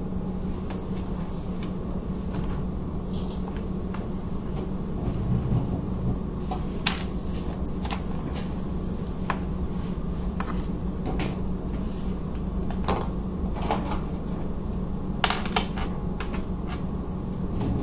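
Steady low background hum picked up by the microphone, with scattered light clicks and knocks at irregular intervals.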